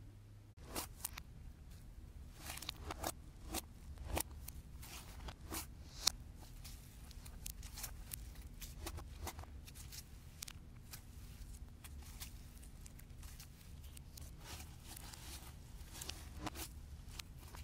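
Thick, fuzzy-textured blue slime being stretched, squeezed and pressed by hand, giving irregular crackles, clicks and soft tearing sounds. One sharper pop comes about six seconds in.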